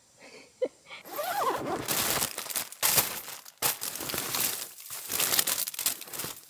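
Clear plastic wrapping around bunches of flowers crinkling and rustling as it is handled and packed, starting about a second in and carrying on in uneven bursts.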